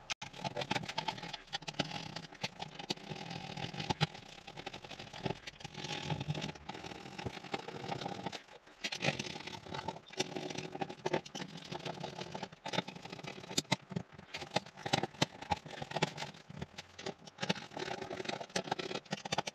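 Close-up handling noise of hands working plastic trim parts and wiring connectors at a car's steering column: continuous rustling and scraping with many small clicks, easing briefly about eight seconds in.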